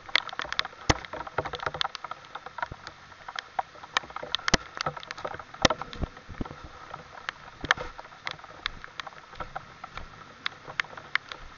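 Scattered raindrops of a rain shower just beginning, tapping close to the microphone: irregular sharp taps several times a second over a faint steady background.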